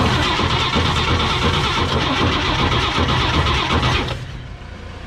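1954 Chevrolet 3100's inline-six engine being cranked on the starter, turning over unevenly for about four seconds and then stopping. It has no fuel supply and is trying to fire on starting fluid alone.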